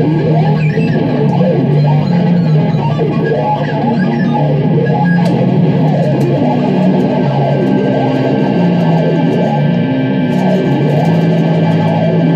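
Electric guitar improvising sweeping sound clusters: a held low drone under a dense mass of notes sliding quickly up and down in pitch. A scratchy crackle joins in near the end.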